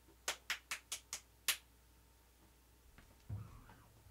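Six sharp clicks in quick succession over about a second, followed about three seconds in by a low thump.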